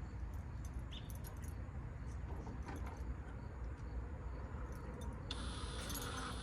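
Faint clicks and light metallic rattling of small screws being handled, over a steady low rumble. A thin, steady high whine starts suddenly about five seconds in.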